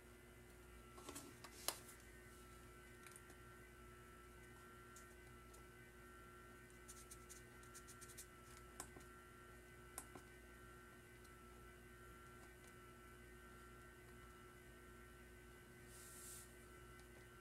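Near silence: a faint steady electrical hum, with a few soft clicks and taps.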